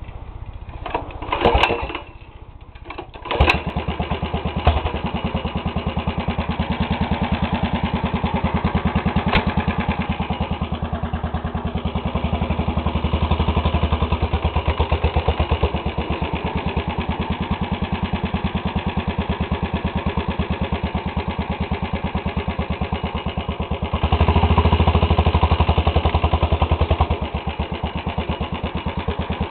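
Lawn tractor's small single-cylinder engine with a couple of loud bursts in the first three seconds, then running steadily under way. It gets louder for a few seconds near the end, then drops back.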